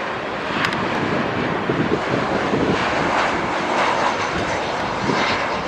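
Jet engine noise from a Boeing 737-800's CFM56-7B turbofans on final approach: a steady, even rush.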